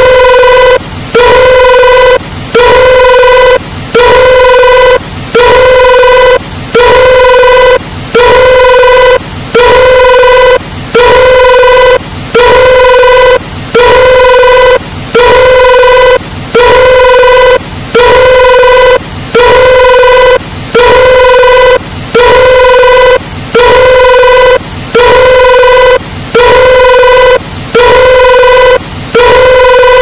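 A loud, buzzy phone-style tone repeating in a steady on-off rhythm, each long beep held at one pitch and separated by short gaps.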